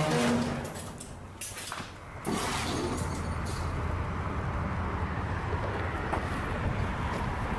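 A metal door creaking briefly as it is pushed open. About two seconds in, a steady low rumble sets in and holds.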